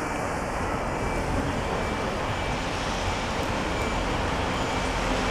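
Class 185 Desiro diesel multiple unit running as it rolls slowly into the platform, a steady mix of diesel engine and rolling noise that grows slightly louder near the end.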